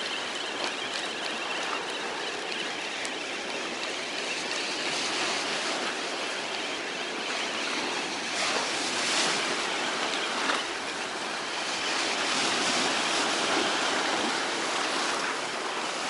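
Rough, stormy sea surf washing against the pier, a steady rushing noise that swells louder a few times.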